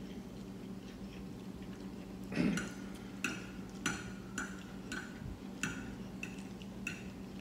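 Metal forks clinking against ceramic plates as spaghetti is twirled up: a series of short, ringing clinks starting a couple of seconds in, over a steady low hum.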